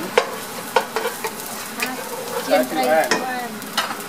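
Chopped garlic sizzling in oil in a nonstick wok, stirred with a wooden spatula that knocks against the pan about six times.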